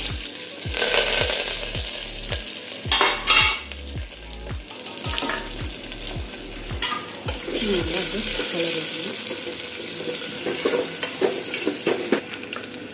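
Chopped onions and chillies sizzling as they fry in hot oil in an aluminium pot, in loud spurts, while a wooden spoon stirs them.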